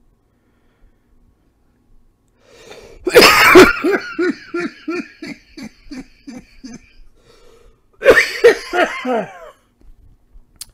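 A man's coughing fit: one loud cough about three seconds in, then a quick run of short hacking coughs, and a second burst of coughs about eight seconds in.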